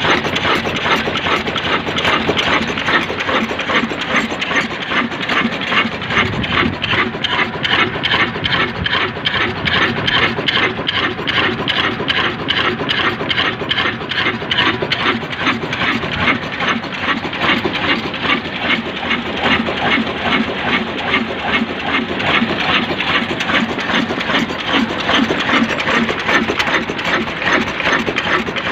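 Slow-speed 20 HP desi 'Kala' diesel engine running steadily, a continuous even clatter of regular beats.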